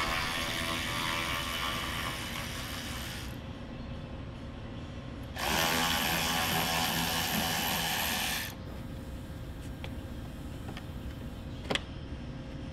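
Cordless ratchet running in two runs of about three seconds each, spinning out fasteners at a car's wheel arch during disassembly. A few light clicks follow, with one sharper click near the end.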